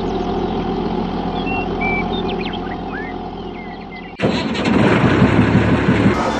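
A motor or engine runs steadily with a fixed hum while birds chirp. About four seconds in there is an abrupt cut to a louder, rougher running sound.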